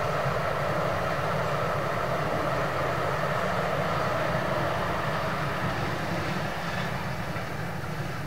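Steam-hauled passenger train running past at a distance, a steady rolling train noise that fades a little over the last few seconds as it moves away.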